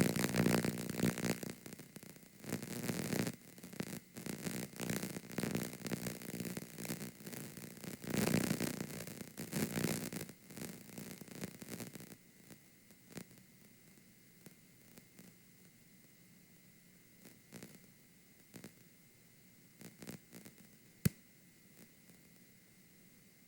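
Damaged VHS tape audio: bursts of loud crackling static and distortion for about the first half, dropping to a faint hiss broken by scattered clicks. A single sharp click near the end is the loudest moment, over a faint steady high tone.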